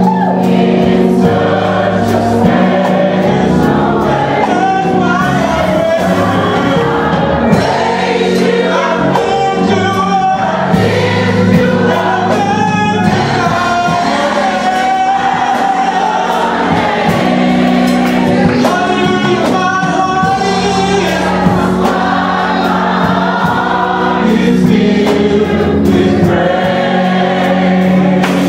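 Gospel choir and congregation singing a worship song, with instrumental backing holding steady bass and chords.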